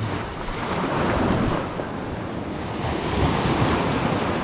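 Small waves washing up onto the beach, with wind buffeting the microphone. The wash swells about a second in and again around three seconds in.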